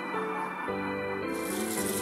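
Background music with sustained keyboard notes; about a second and a half in, water running from a tap into a bathtub comes in under it.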